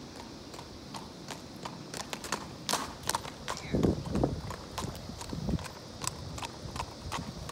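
Horse's hooves clip-clopping on pavement as it trots in hand, a quick run of sharp hoof strikes, with a couple of duller thumps around the middle.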